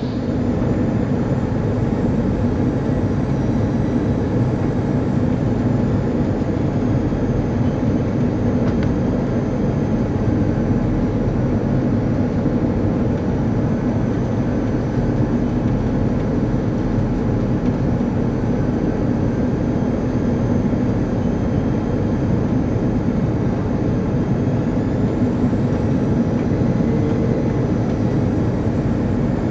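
Airbus A340-300 cabin noise on final approach: a steady rumble of the four CFM56 engines and rushing airflow, heard from inside the cabin.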